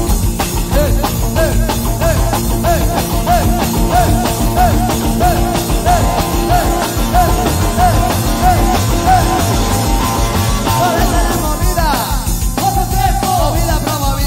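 Rock band playing live, with a steady drum beat under a short rising-and-falling melodic figure repeated about three times a second; near the end the line changes to falling, gliding notes.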